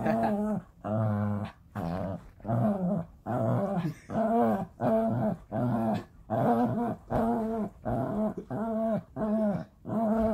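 Dog play-growling while tugging on a rope toy: a steady run of short growls, each broken off by a quick breath, about three every two seconds.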